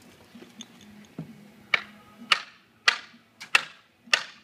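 Hammer blows driving stakes into the ground to brace wooden concrete forms: a steady series of sharp, ringing strikes about every half second or so, starting a little under two seconds in, after a few lighter clicks.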